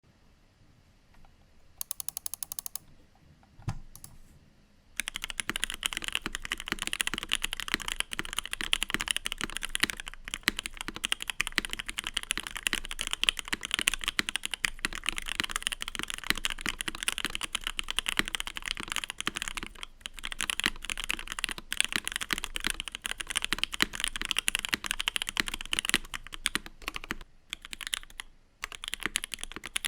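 Fast, continuous typing on a mechanical keyboard with lubed and filmed C3 Tangerines V2 linear switches on a gasket-mounted aluminum plate, fitted with CRP Tulip keycaps: a deeper, poppy sound with little clack. After a short pause near the end, typing resumes on GMK keycaps, higher-pitched and clackier.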